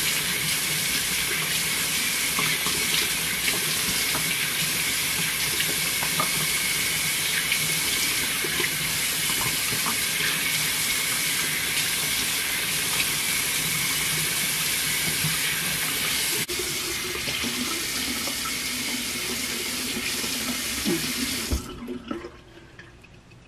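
Bathroom sink tap running into the basin while hands scoop and splash water onto the face, rinsing off cleansing foam. Near the end the tap is turned off and the running water stops abruptly.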